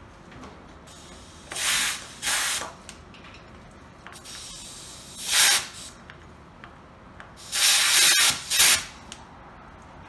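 Short spurts of compressed air hissing from an air chuck as a small wagon tire with an inner tube is inflated: five separate bursts, the longest nearly a second.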